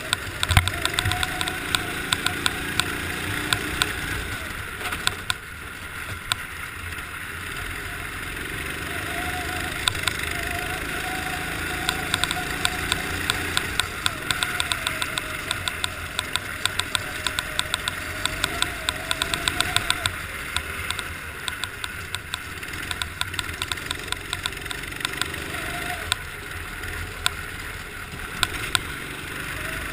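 Racing kart's engine heard from onboard, its revs rising and falling repeatedly, with frequent sharp clicks and rattles throughout.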